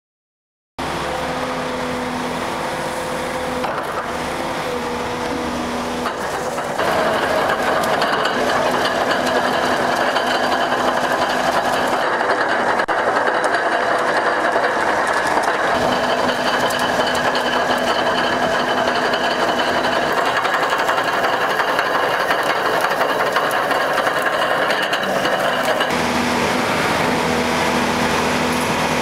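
Excavator-mounted REMU screening bucket running: its hydraulically driven Hardox steel screening discs turn and rattle as compost is sifted through, over the steady hum of the excavator's engine and hydraulics. The sound shifts in character twice, about 7 and 26 seconds in.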